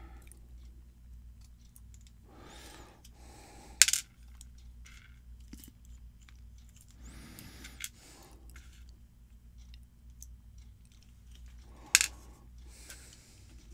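Small metal parts of a pin-tumbler lock cylinder handled during reassembly: faint clicks and clinks, with two sharp metallic clacks, one about four seconds in and one near the end.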